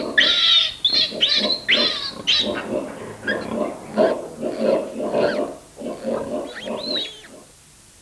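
Piglet grunting and squealing: a string of short calls, with shrill squeals loudest in the first couple of seconds and again near the end, and lower grunts between, stopping shortly before the end.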